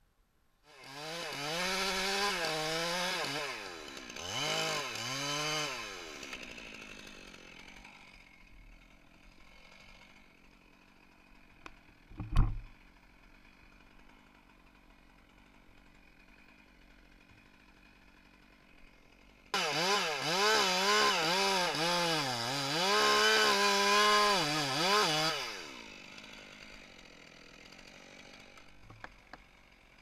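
Two-stroke chainsaw cutting in two bursts of about five to six seconds each, its engine pitch rising and falling quickly as it works through the pine stem, then dying away off the throttle. A single sharp knock falls between the two bursts.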